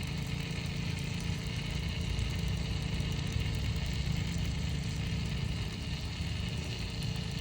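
WD-40 aerosol can spraying without a break into a lock, a steady hiss, over a louder low steady hum.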